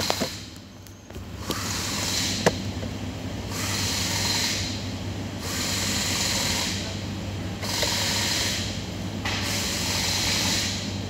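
Mitsubishi Pajero engine idling with a steady low hum, warming up after a thermostat replacement meant to cure overheating. A hiss comes and goes every second or two over it, with a sharp click about two and a half seconds in.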